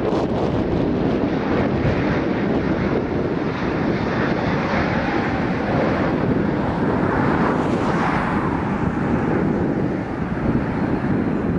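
Jet engines of an Airbus A320neo running steadily as the airliner rolls along the runway, with wind buffeting the microphone.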